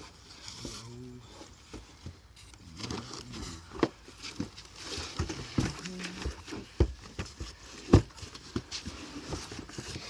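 Irregular knocks and clunks of hard objects being handled, with scraping between them, the loudest about eight seconds in.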